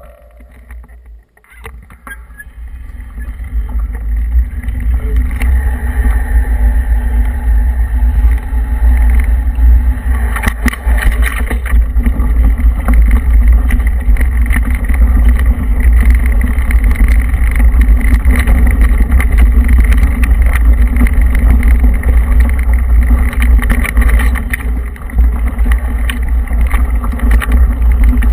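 Wind buffeting the microphone of a camera mounted on a moving vehicle, building over the first few seconds to a steady loud rumble as it gathers speed, with tyres rolling over loose gravel.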